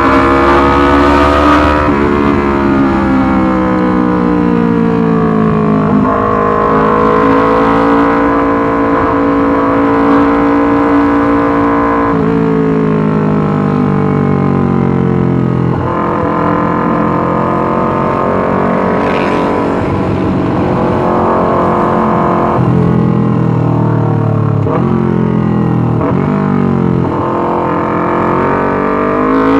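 Yamaha R25 parallel-twin engine through a Racefit Slash aftermarket exhaust, running loudly. Its pitch slides down slowly and jumps back up several times, about 12, 16 and 23 seconds in.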